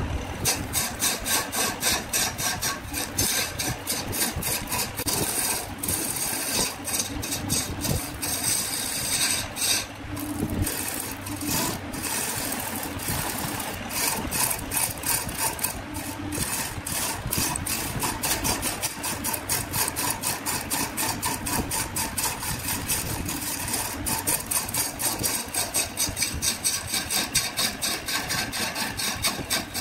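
Wood lathe running while a turning tool cuts into a large spinning wood blank: a steady scraping with a fast, uneven train of ticks as the tool bites the wood.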